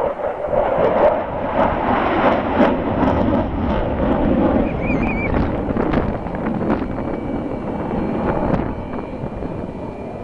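Jet noise of a Sukhoi Su-27 fighter's twin AL-31F turbofans as it flies a display pass overhead: a loud, steady rushing that eases slightly as the jet moves away near the end, with wind noise on the microphone.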